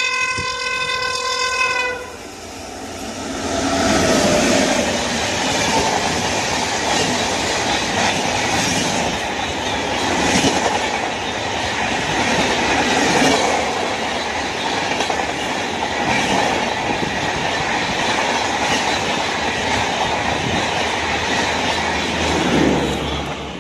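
An Indian Railways WAP7 electric locomotive's horn holding one steady note, cutting off about two seconds in. Then the express train rushes past, its wheels clattering over the rail joints, fading near the end.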